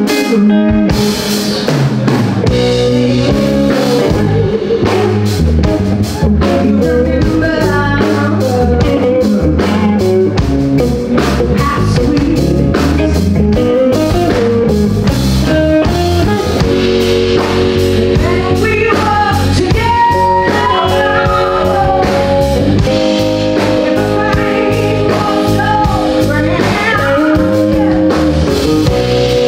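Live blues band playing, with electric guitar and drum kit under a sustained melody line.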